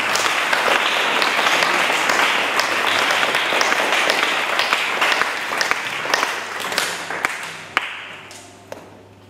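Congregation applauding: dense clapping that starts suddenly, holds steady, then dies away over the last two seconds.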